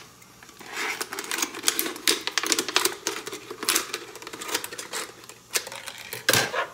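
Thin plastic water bottle crinkling and crackling as it is cut into strips, with many irregular sharp clicks.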